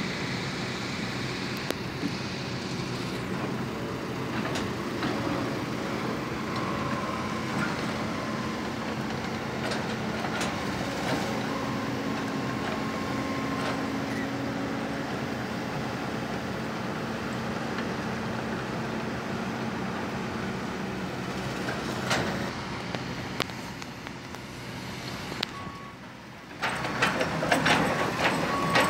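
Kobelco SK200-10 hydraulic excavator's diesel engine running steadily under work, with scattered clicks and clanks. Near the end the sound drops briefly, then comes back louder.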